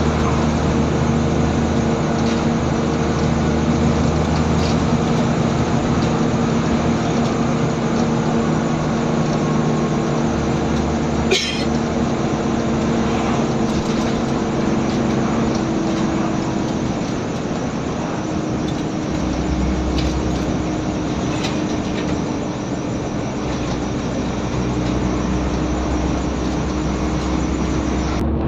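Scania N94UB bus's diesel engine being driven hard, its note stepping up and down several times as the bus changes gear. A single sharp click about eleven seconds in.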